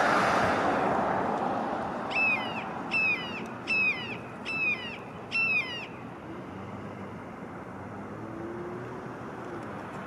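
Juvenile red-shouldered hawk calling five times, about once every 0.8 seconds, each call a high, down-slurred squeal. The calls begin about two seconds in, as the broad rush of a passing vehicle fades out.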